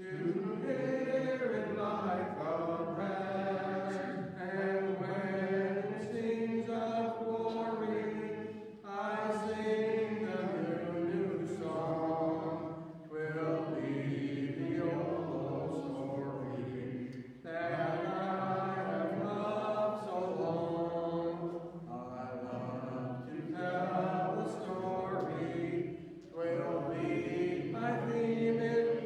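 Congregation singing a hymn in slow, held phrases, with short breaks between the lines.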